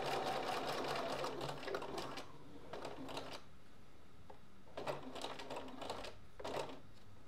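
Bernina sewing machine stitching through layered fabric and vinyl, backstitching across the zipper end. The rapid steady stitching stops about two seconds in, and only a few brief clicks follow.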